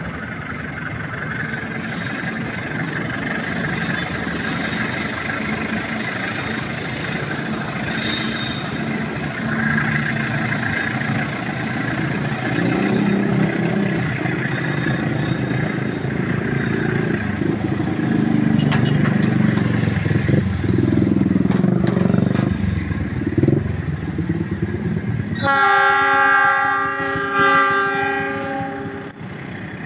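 Indonesian passenger train coaches rolling past on a curve, wheels rumbling and clattering on the rails and growing louder midway. Near the end a train horn sounds one steady blast of about three and a half seconds.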